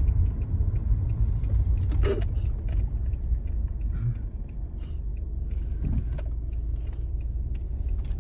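Car on the move: a steady low rumble of engine and road noise, with a few faint clicks and a short sound about two seconds in.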